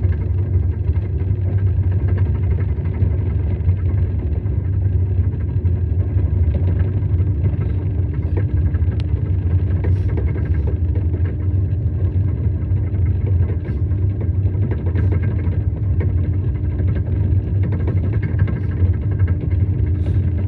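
Steady, loud low rumble of a vehicle in motion, with a steady hum that grows stronger about six seconds in.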